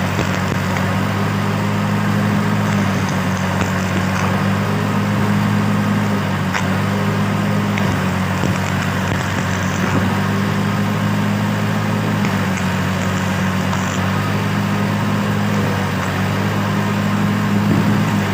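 Stick welding: a steady low hum from the welding machine under the continuous crackle of the arc.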